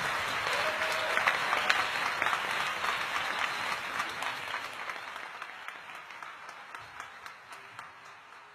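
Audience applauding, loudest in the first couple of seconds and then thinning out and dying away toward the end.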